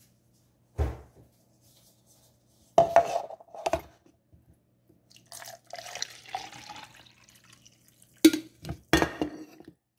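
Coffee poured from a glass coffee carafe into a cup, with a stretch of liquid pouring in the middle and several sharp clinks and knocks of glass against the cup, the loudest near the end.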